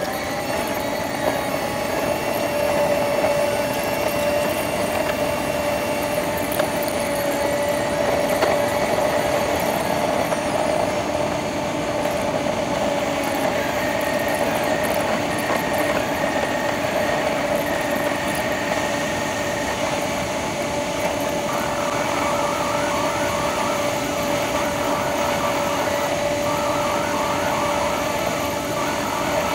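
Car dashcam drive noise played back at twenty times speed, so the engine and road hum becomes a steady, higher-pitched drone. Twice in the second half, short runs of quick chirping come and go over it.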